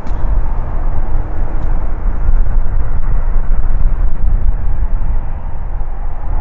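Jet airliner engines heard as a steady, low rumble with no clear pitch, swelling and easing slightly.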